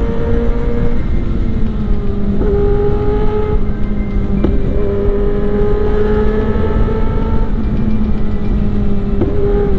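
Sport motorcycle's engine running steadily at cruising speed, heard from the rider's seat with wind rumbling on the microphone; the engine note steps up or down briefly a few times.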